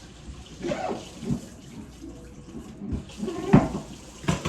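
Kitchen faucet running into a sink as shrimp are rinsed by hand, with a few irregular splashes and knocks.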